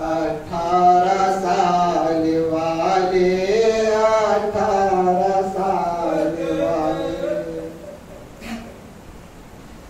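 A man chanting a noha, an Urdu mourning elegy, into a microphone, drawing out one long wavering sung line; the voice trails off about two seconds before the end.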